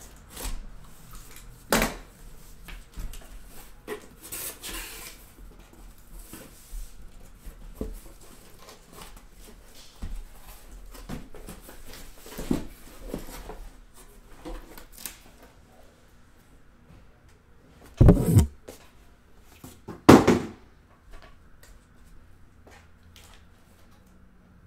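A cardboard shipping case being cut open and unpacked. A box cutter slits the packing tape, and the cardboard flaps and sealed card boxes rustle and scrape as they are handled, with clicks throughout. Near the end come two loud thumps about two seconds apart.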